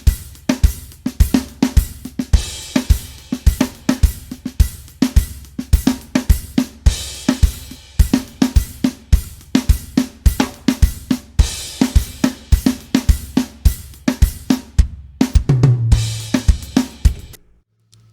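Soloed drum kit playback from a mixed song, with kick, snare, hi-hat and cymbals in a steady groove, played without parallel distortion or parallel compression. The drums stop suddenly near the end.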